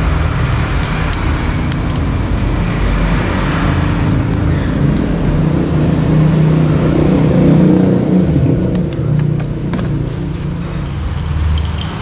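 Steady low rumble of a motor vehicle engine running, swelling a little midway, with scattered light clicks and rustling.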